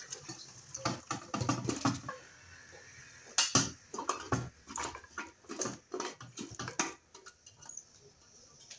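Metal spoon scraping and knocking against a cooking pot as meat stew is spooned out into a glass dish: a run of irregular clinks and scrapes that stops about seven seconds in.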